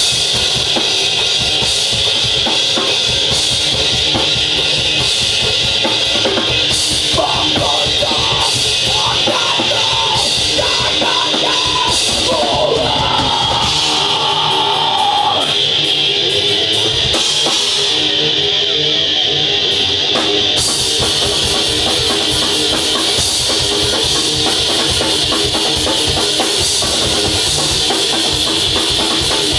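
Death metal band playing live: electric guitar over a fast-hit drum kit, loud and steady throughout.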